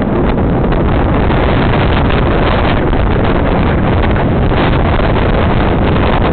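Wind buffeting the microphone: a loud, steady rumbling roar with no engine note standing out of it.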